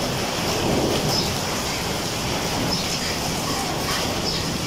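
Heavy rain pouring down steadily in a thunderstorm, with a few sharper splashes of drops now and then.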